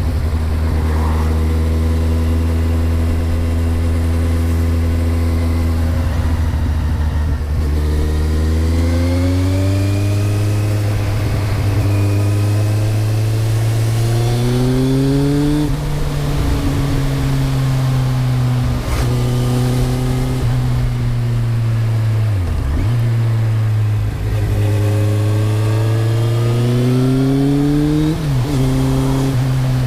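A 2008 Kawasaki Z1000's inline-four engine heard through a Mivv GP exhaust with the dB killer baffle fitted. It runs steadily for the first several seconds, then its pitch climbs slowly several times, dropping suddenly at the top of each climb and dipping briefly in between.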